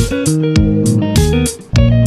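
Background music led by guitar with a steady beat, breaking off briefly near the end.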